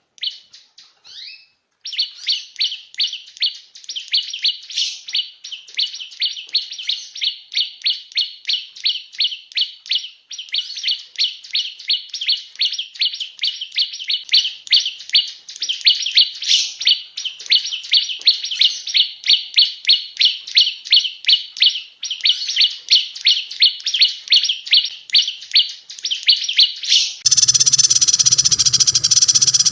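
Recorded songbird call, as used in a birdsong training (masteran) track: a fast, even series of high chirps, about three a second, with a brief gap near the start. Near the end it cuts abruptly to a louder, rougher sound with a low undertone.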